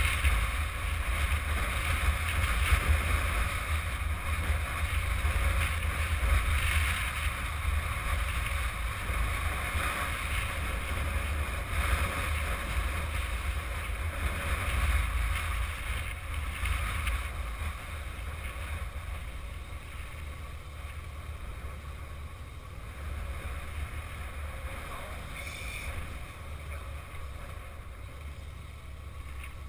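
Wind rushing over the microphone of a camera on a moving Yamaha XJ600 Diversion motorcycle, over a low rumble from the ride. The wind noise eases off in the second half.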